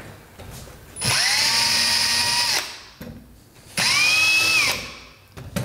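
Cordless drill boring pilot holes through a jig into a veneered door: two short runs, each spinning up to a steady whine and winding down, the second shorter than the first.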